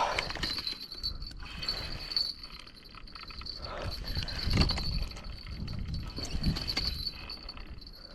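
Crickets chirping in a steady, high-pitched trill, over a low rumble of wind or handling noise.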